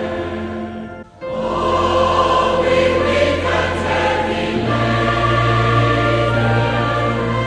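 A choir singing a hymn with instrumental accompaniment, in held, sustained notes. There is a brief break between phrases about a second in.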